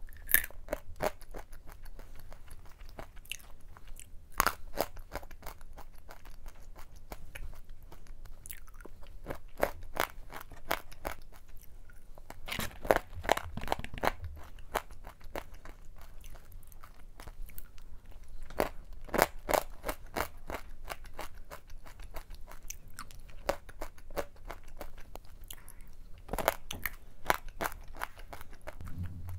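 Roasted almonds and dried corn kernels being crunched and chewed in the mouth: many hard, sharp crunches one after another, with louder runs of crunching about halfway through and again later on.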